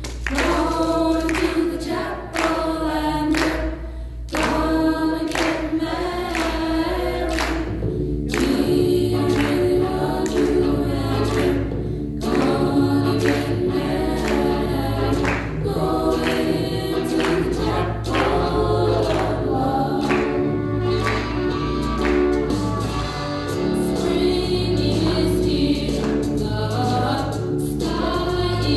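A woman singing into a microphone over recorded music with backing voices, amplified through the hall's PA; a steady bass beat comes in about eight seconds in.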